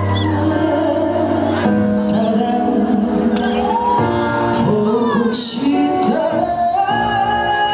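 The instrumental intro of a song playing through a concert sound system: a melody line of long held notes over band backing.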